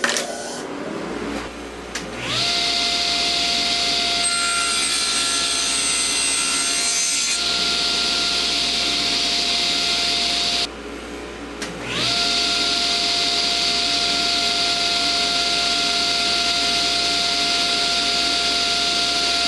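Table saw motor spinning up to speed with a rising whine and then running steadily while the tilted blade cuts an angled groove through a board. It breaks off abruptly about 11 seconds in, then spins up again with the same rising whine and runs steadily for another cut.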